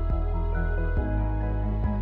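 Soft new-age instrumental background music: sustained notes with a gentle beat about once a second.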